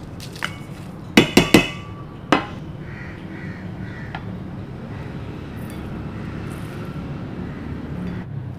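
A spoon clinking against the spice bowl while the dry spices are mixed: three quick sharp clinks with a short ring, then one more about a second later, over a low steady background noise.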